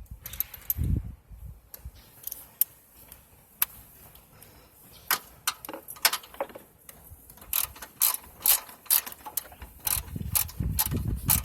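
Socket ratchet with an 11 mm socket, clicking as it turns out a bolt whose head is corroded by battery acid. A few scattered clicks and knocks come first, then about seven seconds in a steady run of ratchet clicks, about three a second.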